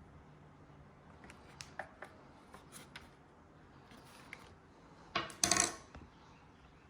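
Small clicks and taps of a flathead screwdriver working the dispenser lever's spring into its seat, then a louder rattling clatter lasting under a second, about five seconds in.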